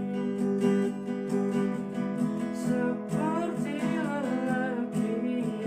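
Music led by a strummed acoustic guitar, steady chords with a gliding melodic line in the middle.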